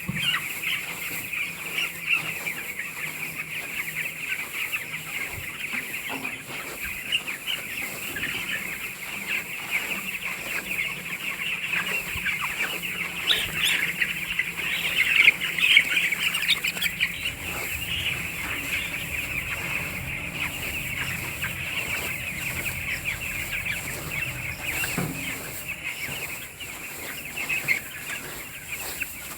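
A large flock of chickens in a poultry farm, many birds calling at once in a dense, continuous chatter. It grows busier and louder about halfway through.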